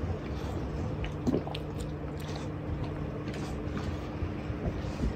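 Mastiff puppies sniffing and licking around an emptied food bowl and the floor after a raw chicken meal: scattered small wet clicks and rustles over a steady low hum.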